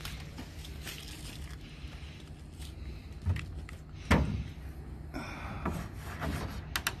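Pressure-treated pine boards handled in the stake-side slots of a pickup bed: wood rubbing and scraping on wood, with a few knocks, the sharpest about four seconds in.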